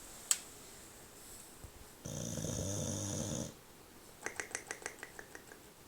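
English bulldog snoring in its sleep: one loud, low rattling snore about two seconds in, lasting about a second and a half, then a quick fluttering rattle of breath that fades out. A sharp click sounds just after the start.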